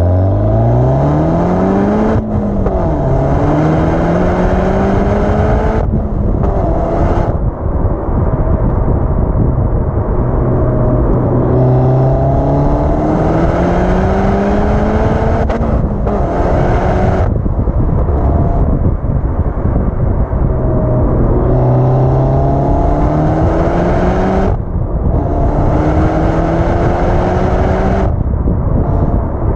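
Exhaust of a turbocharged four-cylinder hot hatch, heard right at the tailpipe, accelerating hard through the gears. The engine note climbs in pitch, then drops back or breaks off briefly at each of several gear changes before climbing again.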